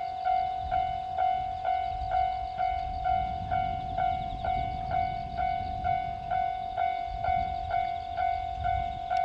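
Japanese level-crossing warning alarm ringing its evenly repeated electronic 'kan-kan' tone, about two strokes a second. A low rumble comes in underneath from about three seconds in.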